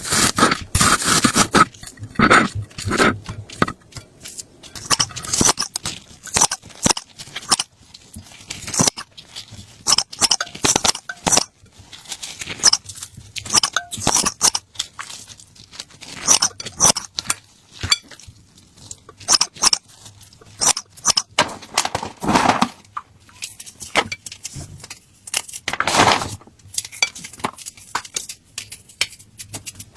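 Kitchen utensils and dishes clinking, knocking and scraping in an irregular run of short hits during food preparation, with a few louder knocks near the start and late on.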